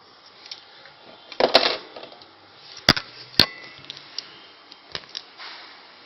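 Sharp clicks and knocks from hands working on an RFID door lock and its parts: a short rattle about a second and a half in, two louder knocks half a second apart, then a few lighter ticks.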